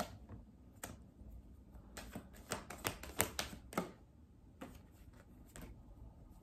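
Tarot cards being handled and laid down on a table: a run of light, irregular clicks and taps, several close together around the middle.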